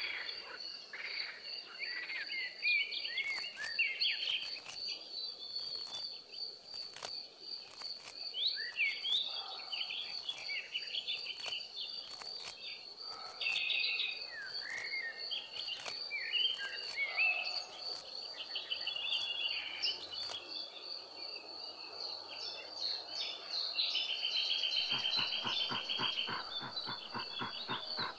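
Wild forest ambience: an insect trill pulses steadily at a high pitch throughout, with many birds chirping and calling over it. About three seconds before the end, a fast, evenly pulsed rattling call joins in.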